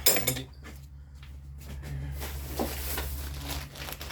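Cardboard parts box being handled and opened: a sharp knock at the start, then rustling of the packaging with a small knock partway through.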